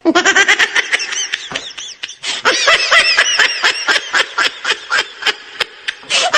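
Laughter sound effect: a long run of quick, high-pitched 'ha' pulses, about five a second, each rising and falling in pitch.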